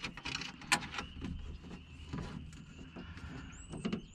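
Scattered clicks, knocks and rustling of window-regulator parts being handled and fitted inside a Nissan 350Z door, with a brief high squeak near the end.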